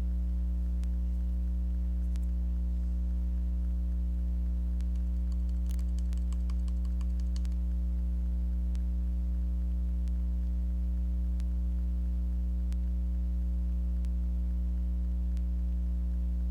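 Steady electrical mains hum, with faint scattered clicks and a quick run of light clicks about six seconds in.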